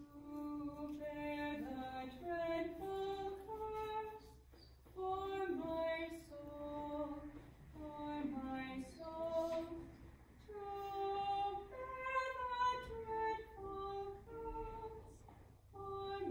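A woman singing a slow communion hymn: a single melody line of held notes, sung in short phrases with brief pauses between them.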